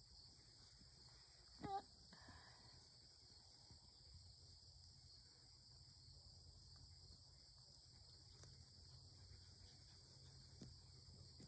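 Near silence with a faint, steady high-pitched insect chorus, and one short pitched sound about two seconds in.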